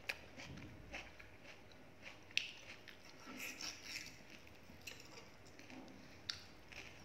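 Knife and fork cutting a sauce-coated chicken drumstick on a plate: soft scraping and squelching of the meat with sharp clicks of metal cutlery against the plate, the loudest about two and a half seconds in and another near the end.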